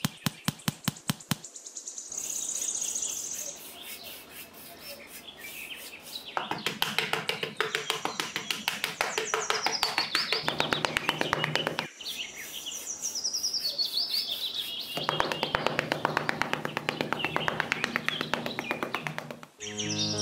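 Songbirds chirping in short falling trills, over long runs of quick, even ticking.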